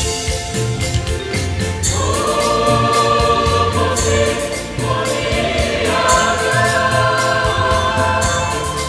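Mixed choir of men and women singing in harmony, holding long chords that change about two and six seconds in, over an accompaniment with a steady beat.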